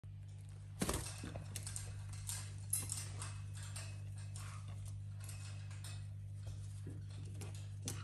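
Parrots pecking and clambering on a plastic ball-track toy and its spring-mounted toy bird: irregular clicks, taps and knocks, the loudest about a second in and again near three seconds. A steady low hum runs underneath.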